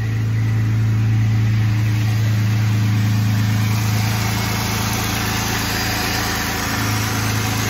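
2014 Jeep Wrangler Rubicon's 3.6-litre V6 idling steadily, just restarted and running again now that the fuel line, which had fallen off when its clip broke, is reconnected.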